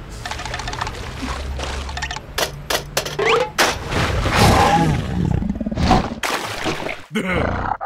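Cartoon sound effects and wordless character noises: a low ambient hum, then a string of sharp knocks and whacks mixed with short squeaky gliding cries, busiest in the middle, as the carnivorous plant snaps at the cup.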